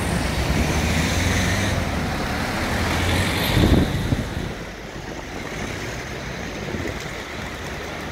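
Street traffic: a motor vehicle's engine running close by, loudest a little before halfway through, then dropping back to a lighter, steady hum of passing cars.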